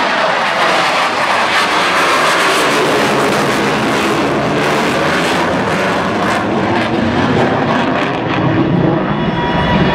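Fixed-wing aircraft engine noise at an air display: a loud, steady rushing roar.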